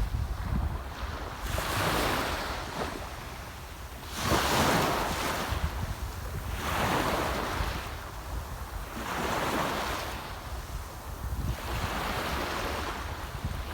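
Small sea waves washing onto the shore, about five of them, one every two to three seconds, each swelling and falling away.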